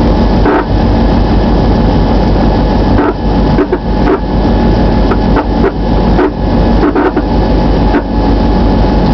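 Inside the cab of Ohio Central locomotive 462 while it rolls along the track: a steady, loud engine drone with irregular clacks and knocks from the running gear and cab.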